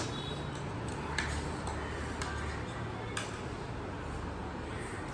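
Light clicks and taps of eating utensils against a bowl, a few sharp ones about a second apart, over a steady low room hum.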